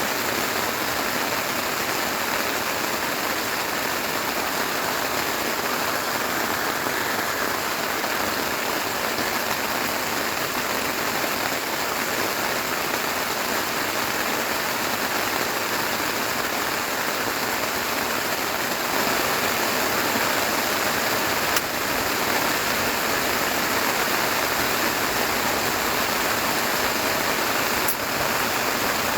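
Steady heavy rain falling, with two brief clicks in the second half.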